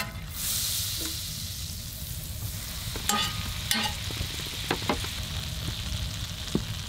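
Butter sizzling as it melts in a hot cast iron skillet, a steady frying hiss with a few short sharp pops scattered through it. A spatula is working the butter around the pan at the start.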